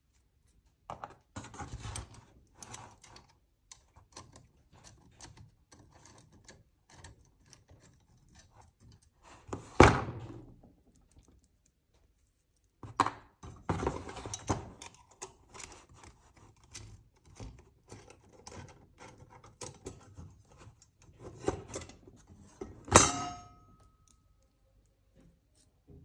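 Small metal parts clinking and rattling: steel chainring bolts and an Allen key on an aluminium crankset being worked by hand. Two sharper metallic knocks, about ten seconds in and near the end; the second rings briefly.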